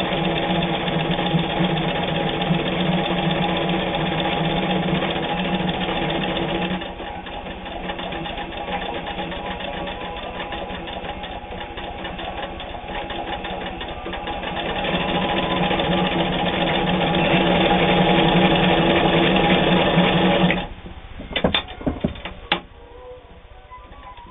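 Vogue Stitch electric home sewing machine sewing a feather stitch, its feed driving the fabric back and forth. The speed drops about a third of the way in and picks up again later, then the machine stops suddenly near the end, followed by a few clicks.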